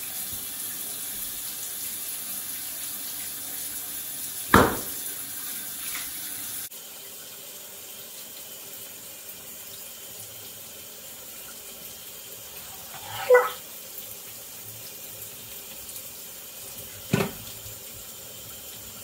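Shower spray running steadily, with its noise dropping a little about a third of the way through. Three brief, louder sounds stand out over it; the middle one has a wavering pitch.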